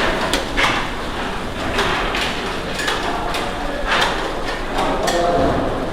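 Work clatter in a baklava bakery: irregular knocks, clicks and scrapes over a steady noisy background, with faint voices now and then.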